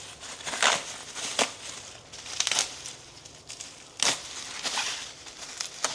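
Packaging being handled: irregular bursts of crinkling and rustling with a few sharp knocks, as the pressure washer's hose and parts are moved about.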